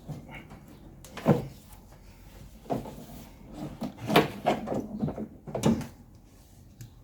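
Handling knocks and clunks of plastic engine-bay parts as the engine breather hose is worked loose with pliers: about five separate knocks, the loudest about a second in and about four seconds in.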